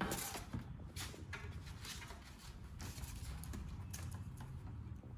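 Handling noise: scattered light knocks and clicks as a small metal-cased converter box is moved on a desk and network cables are handled, over a low steady hum.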